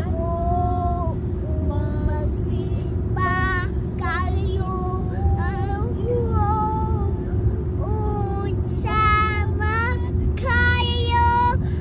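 A young girl singing in held, gliding notes over the steady low rumble of a moving car's cabin.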